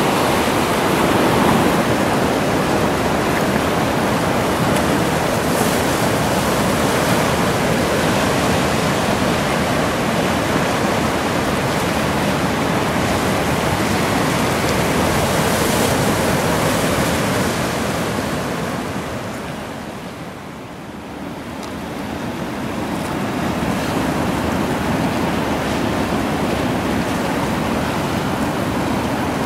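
Steady rushing of sea water washing over a rocky shore. It dips in loudness for a couple of seconds about two-thirds of the way through, then returns.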